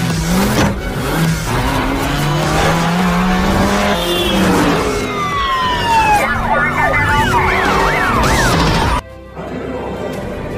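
Car sound effects mixed over music: a running engine note, then a falling whine and a fast up-and-down siren-like wail. The effects cut off suddenly near the end, leaving quieter music.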